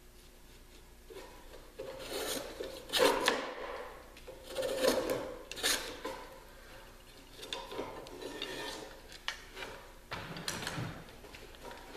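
Small hand plane shaving the thin tapered end of a wooden kayak strip to true up its fit, about eight short scraping strokes at an uneven pace with pauses between.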